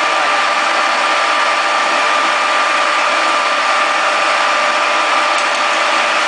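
Conventional milling machine running steadily while friction stir welding aluminium alloy: a constant mechanical noise with a steady high whine.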